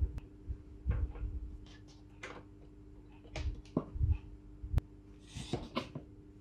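Silicone spatula scraping and folding thick cake batter in a stainless steel bowl, with scattered light clicks and knocks of utensils against the metal bowl, one sharp click near the end, over a faint steady hum.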